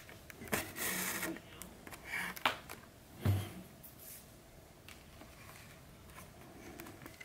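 Thread being pulled through stitching holes in leather during hand-stitching: a few short rubbing pulls, with a soft knock about three seconds in.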